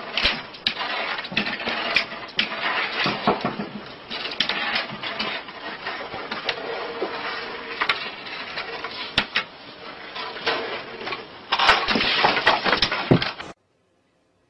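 Rough, hissing home-video noise full of scattered sharp clicks and knocks, louder near the end, then cutting off abruptly.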